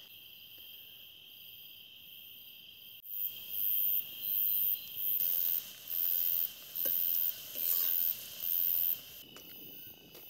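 Crickets trilling steadily. From about three seconds in, a second insect joins with a very high buzzing call that comes and goes about once a second.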